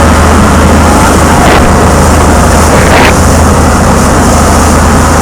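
Fishing charter boat's engine running with a steady low drone, loud on the microphone, with two brief hisses about a second and a half and three seconds in.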